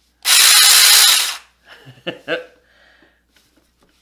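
Zeeksaw mini cordless chainsaw triggered briefly with no wood: the electric motor and chain spin up at once with a loud whir, run for about a second, then wind down.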